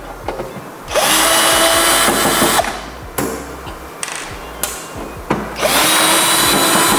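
Cordless drill-driver backing out the screws of an inverter's metal cover. It runs in two bursts of about a second and a half each, a steady whine, with a few short clicks between them.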